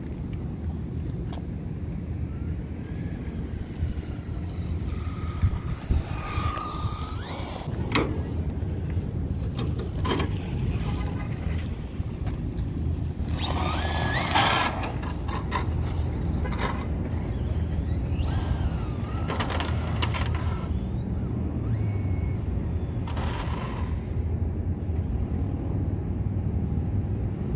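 Electric motor and drivetrain of a Team Associated DR10 RC drag car whining in several short runs, rising and falling in pitch and loudest about halfway through. Tyre hiss on asphalt accompanies the runs, over a steady low rumble.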